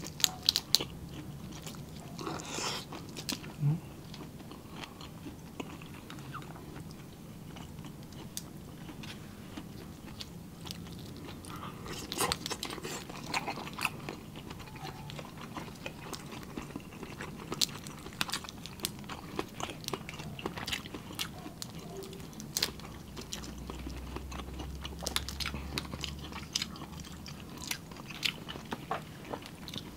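Close-miked eating of seafood: chewing and crunching, with scattered sharp clicks and crackles as shrimp shells are peeled by hand.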